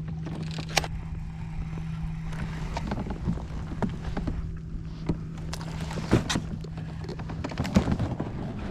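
Scattered knocks and clicks of gear against a plastic fishing kayak, over a steady low hum that stops near the end.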